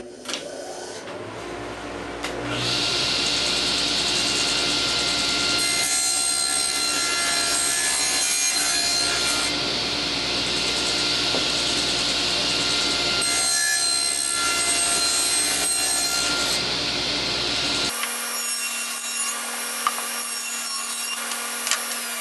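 Table saw blade cutting through half-inch construction-grade plywood: the motor comes up to speed in the first couple of seconds, then a loud, steady cutting sound shifts every few seconds as each wall of the box goes through the blade to rip off its lid. About eighteen seconds in, the sound changes abruptly and loses its low end.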